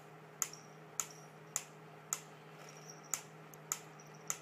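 Wooden pyramid-style mechanical metronome ticking at a steady tempo, a sharp tick a little under twice a second.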